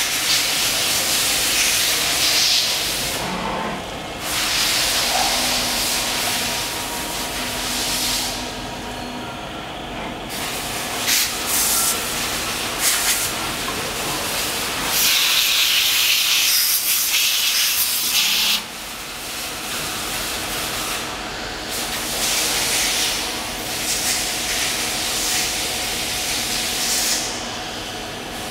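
CNC turning lathe machining an aluminium part: hissing spray of coolant that comes and goes in stretches, loudest about halfway through, over a steady machine hum.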